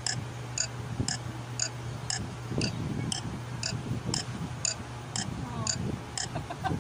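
Steady clock-like ticking, about two high-pitched ticks a second, over a low steady hum.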